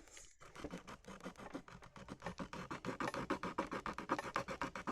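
Rapid back-and-forth scribbling on paper, a quick run of scratchy strokes several times a second, as the paper squishy's design is coloured in.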